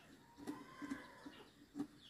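Light, irregular clicks and taps of hands working a chainsaw's air filter in its plastic housing, with a faint bird call in the background.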